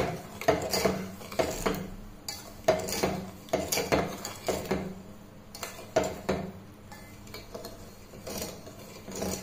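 Steel spoon stirring sugar and water in a stainless steel pot, scraping and clinking against the pot's sides and bottom at irregular intervals while the sugar dissolves into syrup. The strokes are fewer and softer in the second half, over a faint steady hum.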